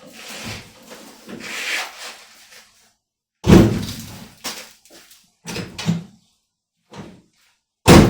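Truck door slamming shut twice, about four seconds apart, with softer knocks and clunks in between.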